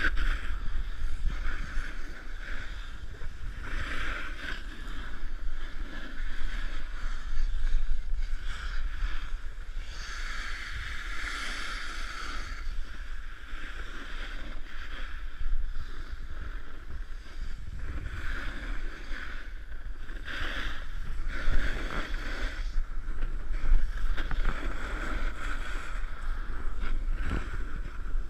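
Wind buffeting the microphone of a camera carried by a snowboarder riding down a groomed piste, with the hiss and scrape of the snowboard sliding over the snow. The scraping swells and fades with the turns, most strongly about ten to twelve seconds in.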